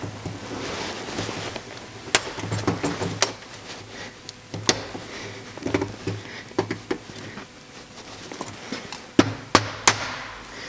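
Scattered metallic clicks and scrapes as a steel circlip is worked around onto a synchro ring on a Porsche 902 transmission gear with circlip pliers, then three quick, sharper taps of a small hammer near the end, tapping down the last part of the clip to seat it.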